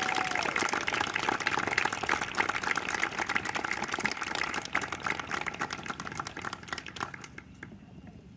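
An audience applauding, a dense patter of many hands clapping that dies away over the last couple of seconds.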